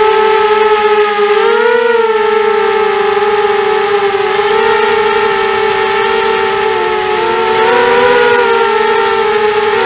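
ZMR250 quadcopter's four Dragonfly 1806 2300kv brushless motors spinning Gemfan 5x3 propellers in flight, heard from on board: a loud, steady whine whose pitch wavers with the throttle and rises briefly about two seconds in and again near the end, over a hiss of rushing air.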